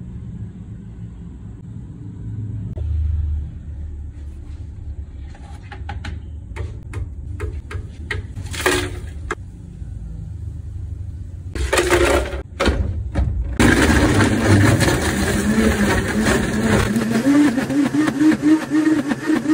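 Faint clicks and handling noises, two short loud bursts, then a countertop blender starting up about 14 seconds in and running loud as it blends ice and milk for a frappe. The motor's pitch wavers while a tamper is worked through the lid.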